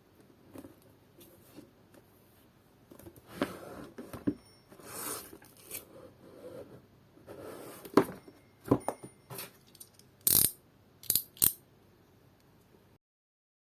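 Unboxing handling noises: soft rustling of packaging broken by sharp clicks and knocks, the loudest about eight seconds in and a quick cluster a few seconds later.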